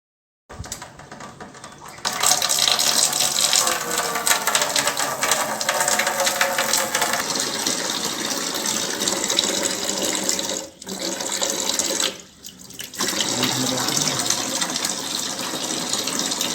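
Water running from a tap through an electric instant water heater: it starts softly about half a second in, comes on strongly at about two seconds and then runs steadily, dropping off briefly twice in the middle.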